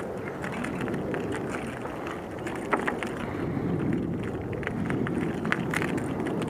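Steady wind rumble on the microphone, with a few faint clicks about three seconds in and again near the end.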